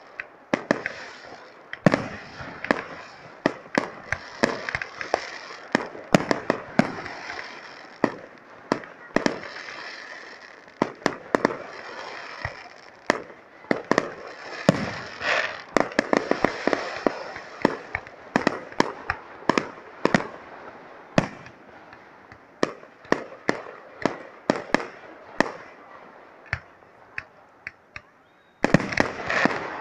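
Aerial firework shells bursting in quick, irregular succession, a couple of bangs a second, with crackling between them. The volley grows suddenly louder near the end.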